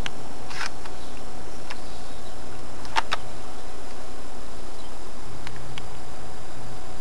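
Bolt of an AGM L96 spring-powered airsoft sniper rifle being worked to cock it for the next shot. It gives a few sharp clicks and clacks, with a close pair about three seconds in, over steady background noise.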